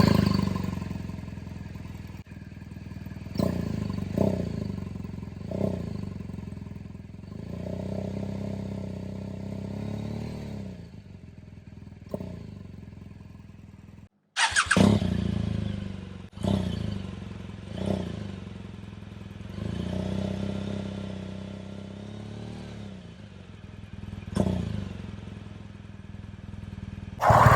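BMW R1200GS liquid-cooled boxer twin on its stock exhaust, idling, with short throttle blips and a longer rev that rises and falls. It drops out briefly about halfway through, then idles again with more blips and another longer rev.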